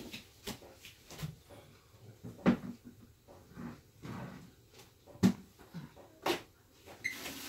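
Kitchenware being handled: scattered knocks and clicks, with three louder sharp knocks about two and a half, five and a quarter and six and a quarter seconds in. A steady hiss starts near the end.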